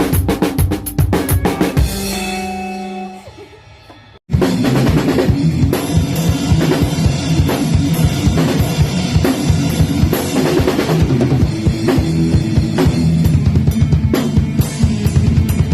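Drum kit played fast with kick, snare and cymbal hits. About two seconds in the drumming stops and a held low note rings and fades. After a sudden break the full kit comes back in, busy and steady, over a low sustained accompaniment.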